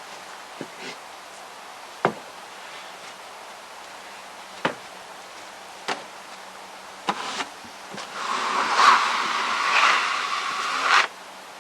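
Sharp knocks of rough-cut boards being handled and stacked, a few seconds apart, then about three seconds of loud scraping, rushing noise that stops suddenly.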